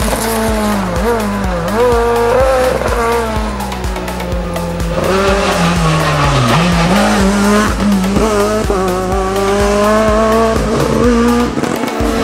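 Renault Clio rally car engine at full racing revs, the note rising and falling with gear changes and braking, including a long slow drop midway before it picks up again. Music with a steady beat runs underneath.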